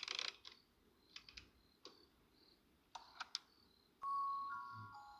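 Clockwork music box being wound, its key's ratchet clicking in short bursts, then about four seconds in the box starts to play, plucking ringing metal notes of a slow tune.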